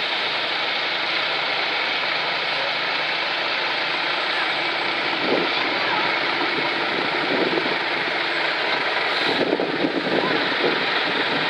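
Truck engines running as trucks drive past, a steady dense noise, with people talking in the background.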